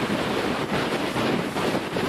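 Steady wind noise buffeting the microphone aboard a small boat, mixed with the rush of water and the boat's motor.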